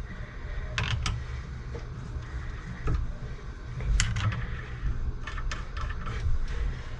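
Scattered sharp clicks and knocks of transmission parts being handled and fitted, over a steady low rumble.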